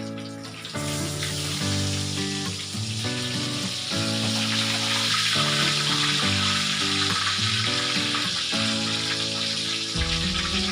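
Food frying in hot oil in a pan, sizzling loudly, the hiss starting suddenly about a second in and holding steady, with background music playing throughout.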